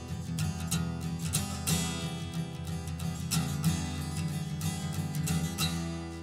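Music: an instrumental break in a song between sung lines, with acoustic guitar strumming.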